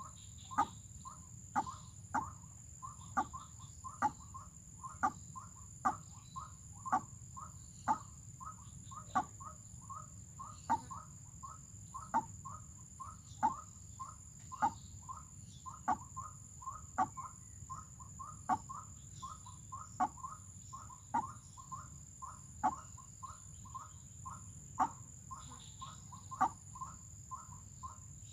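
White-breasted waterhen calls: a steady rhythmic series of short notes, about two to three a second with a louder one roughly every second. A steady high whine sits behind them.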